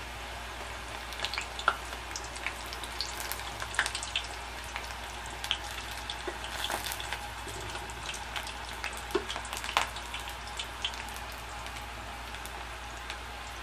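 Namak pare (strips of maida dough) deep-frying in hot oil: a steady sizzle with many sharp crackles and pops, while a slotted spatula stirs them.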